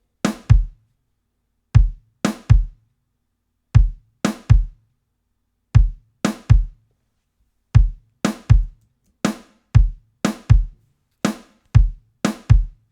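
Sampled acoustic drum kit, kick and snare, playing a looped two-bar groove, the snare shaped with EQ; the same pattern of deep kick hits and brighter snare hits repeats about every two seconds.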